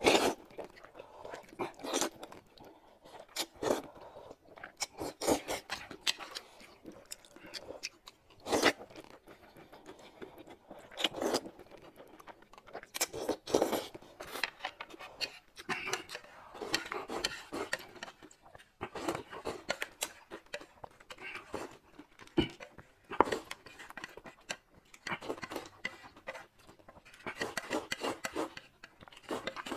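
Close-miked eating sounds: irregular slurps and chewing as wide noodles in sauce are sucked up and eaten. Near the end there is a longer run of slurping as sauce is drunk straight from the tilted plate.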